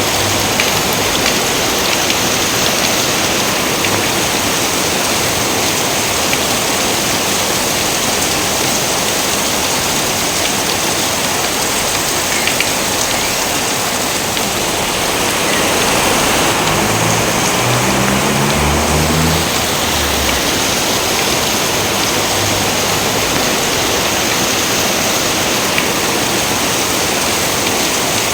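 Steady heavy rain, a dense even hiss of falling water. A low rumble swells briefly a little past the middle.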